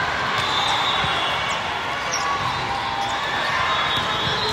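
Steady din of a large hall full of volleyball play: many voices at once and scattered thuds of volleyballs being hit and bouncing on the court floor.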